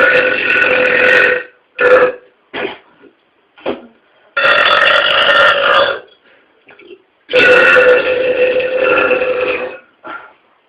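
A man belching: three long, drawn-out burps with a steady pitch, each lasting about two seconds, with a few short sounds in between.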